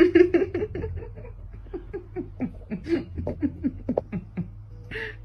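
A person laughing: a long run of quick, pitched laugh pulses, loudest at the start and tailing off over about four seconds.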